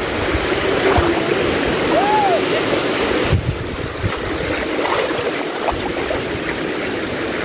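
Small waves washing in and lapping around a rock at the water's edge, a steady rush of shallow surf close to the microphone.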